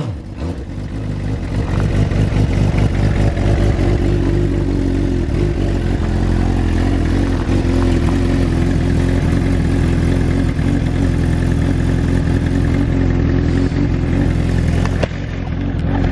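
Speedcar Xtreme 750cc crosskart engine running at a steady idle through its bolt-on silencer, a quieter exhaust than its usual one, having just been started.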